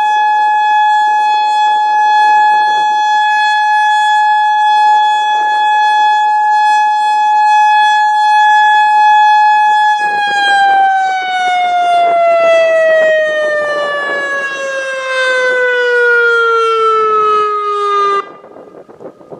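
Federal Signal Modulator 4016 electronic outdoor warning siren sounding a steady tone during a test. About halfway through it begins a slow falling wind-down and then cuts off shortly before the end. Strong wind buffets the microphone throughout.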